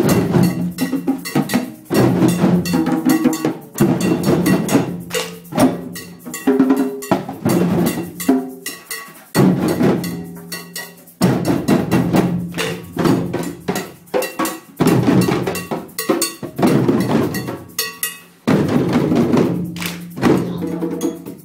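Many djembes played together by hand in an ensemble rhythm, dense slaps and ringing bass tones, with a few short breaks between phrases.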